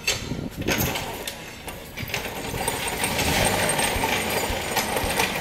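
Small wheels of a wheeled engine stand rolling over rough concrete as men push it, with a steady clattering rattle from the stand and the engine riding on it.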